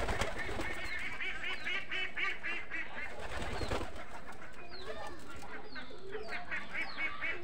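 Chickens and pigeons calling in a rooftop coop: a quick run of pitched clucking calls, then a string of short calls that each fall in pitch, about two a second.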